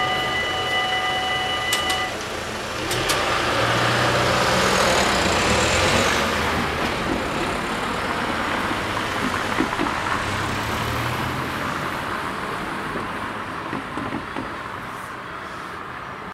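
Level-crossing bells ringing steadily while the barriers finish rising, stopping about two seconds in. Cars then drive over the crossing, their tyre and engine noise swelling and slowly fading.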